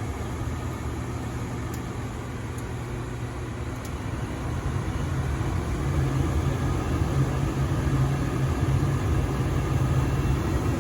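Goodman gas furnace running with a steady low rumble and hum, growing louder about five seconds in.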